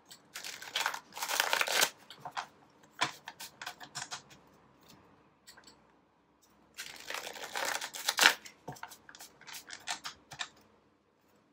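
A small deck of cards being shuffled by hand: papery riffling and card-edge clicks in two spells, the first about a second in and a longer one around seven seconds in, with light taps and ticks between.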